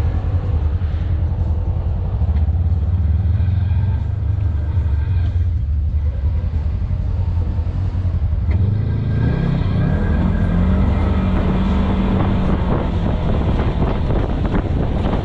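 Off-road vehicle's engine running as it drives along a rough dirt trail, a steady low drone under road and wind noise. A little past halfway the engine note rises and holds higher.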